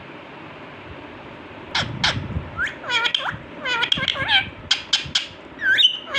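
Parrot calling in a rapid run of short squawks and chattering, sliding calls, starting about two seconds in over a steady hiss.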